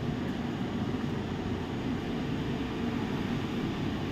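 Steady room hum and hiss of air conditioning, with a faint constant tone.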